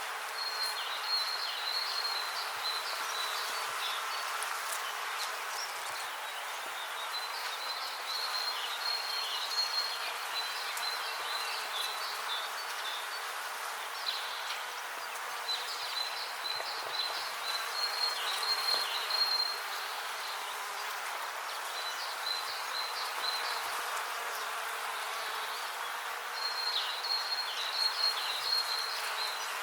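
Honeybees buzzing steadily. Higher chirping comes and goes in phrases a few seconds long.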